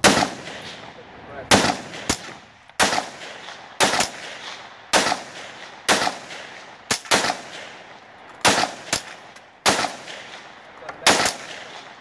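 A semi-automatic handgun fired in a steady string of about a dozen shots, spaced roughly half a second to a second and a half apart, each crack followed by a short ringing echo.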